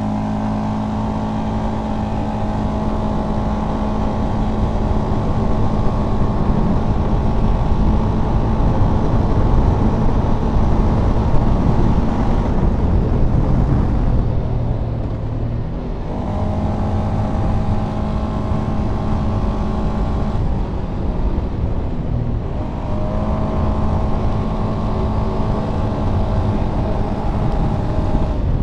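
Polaris Sportsman 570 ATV's single-cylinder engine running hard under acceleration, heard from the rider's seat, over a steady rush of wind and tyre noise. The engine note drops back twice, about halfway through and again a few seconds later, then comes back each time.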